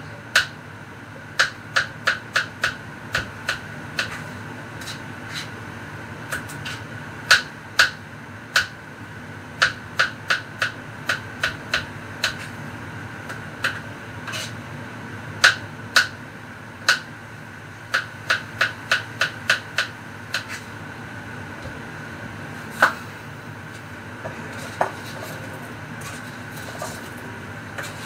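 Knife chopping on a cutting board: sharp, irregular knocks in short runs with pauses between, growing sparse in the last few seconds.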